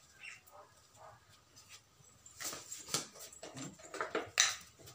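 Several short, sharp animal calls bunched in the second half, the loudest one near the end.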